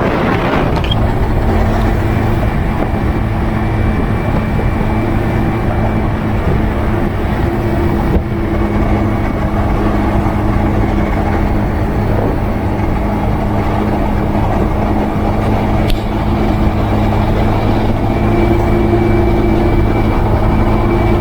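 Motorcycle engine running steadily at cruising speed, an even drone over a rushing road noise.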